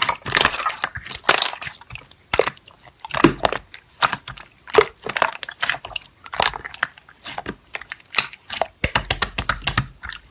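Slime being squished and pressed by hand, giving an irregular run of crackly clicks and pops.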